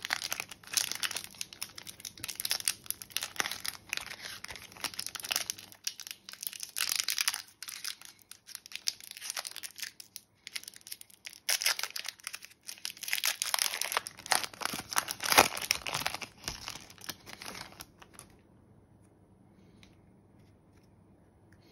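Foil wrapper of an Upper Deck Marvel Annual trading card pack being torn open and crinkled by hand, an irregular crackling and tearing that stops about three seconds before the end.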